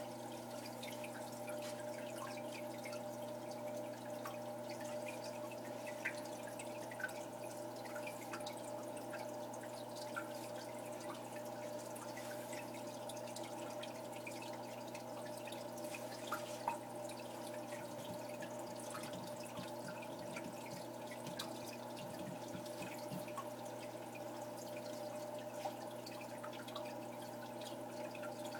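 Aquarium water dripping and trickling with scattered small splashes and bubbles, over a steady electric hum from the tank's equipment.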